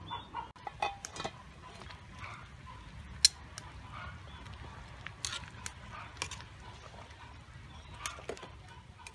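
A knife chopping on a wooden board in the first second, then metal tongs clinking now and then against a steel stockpot as pig intestines are turned in boiling water.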